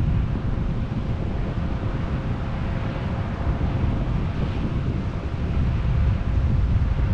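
John Deere 9650 STS combine running during corn harvest: a steady low rumble with a faint steady hum above it.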